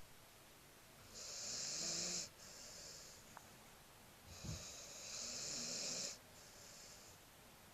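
Pit bull puppy snoring in its sleep: two long, airy snoring breaths, each followed by a softer one.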